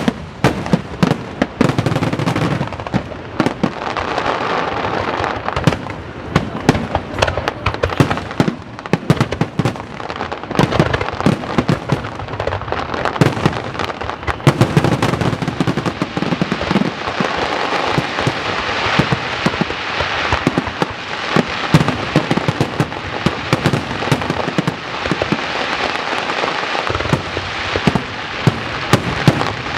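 Aerial fireworks display: a continuous barrage of shell bursts and dense crackling, with frequent sharp bangs through a steady haze of crackle.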